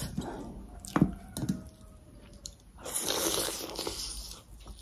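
Close-up eating by hand: fingers scoop soup-soaked food from a steel bowl with a couple of sharp clicks about a second in, then a longer noisy bite and chew about three seconds in.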